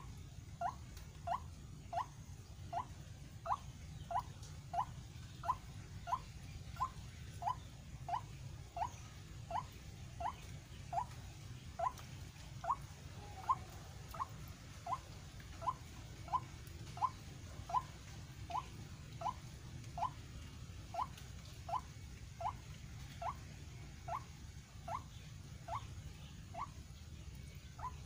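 White-breasted waterhen calling: a short rising note repeated steadily, about one and a half times a second.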